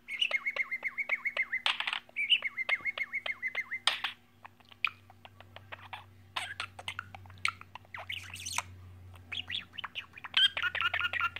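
Pet bird chattering: two fast trills of rapidly repeated chirps in the first few seconds, then a scatter of clicks and short chirps, with quick chirping picking up again near the end.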